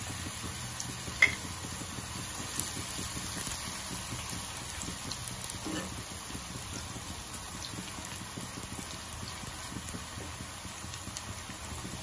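Potato fries coated in cornflour deep-frying in hot oil in a pan, a steady bubbling sizzle. A few sharp clicks of a metal slotted spatula against the pan break through it, the loudest about a second in.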